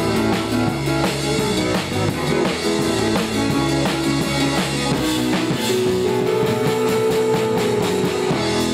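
Music with a drum kit keeping a steady beat, with bass and held notes over it.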